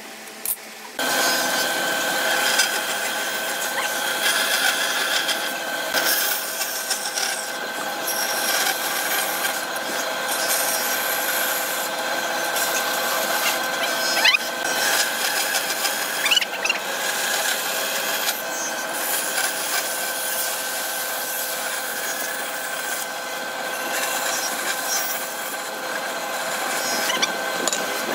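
Band saw running steadily and sawing through hardwood beams, starting about a second in.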